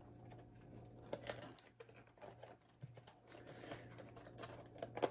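Fingernail picking and prying at the bottom flap of a cardboard fragrance box: faint, scattered scratches and small clicks of paperboard, with a sharper snap right at the end.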